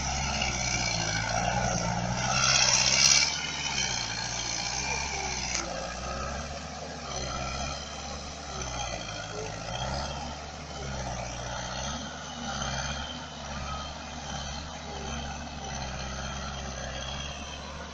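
Heavy machinery's diesel engine running under load, its pitch rising and falling repeatedly, with a high whine over it.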